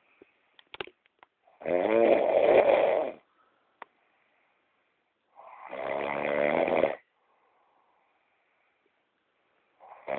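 A woman snoring heavily in her sleep, each loud snore lasting about a second and a half and coming about every four seconds. In the quiet between snores come a few sharp clicks, a quick cluster in the first second and one more near the middle, which the uploader puts down to her jaw clicking.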